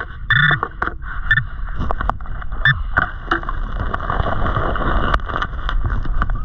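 A metal-detector pinpointer beeping once near the start, with a couple of fainter beeps after. Then stones and gravel click and grind as a gloved hand digs through the creek bed, recorded underwater over a steady wash of water noise.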